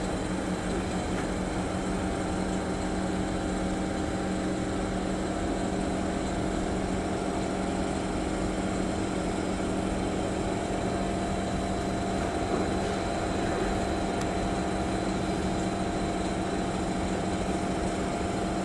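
Steady mechanical hum inside a Singapore MRT train car standing at a station with its doors open, made of several held tones over an even rushing background.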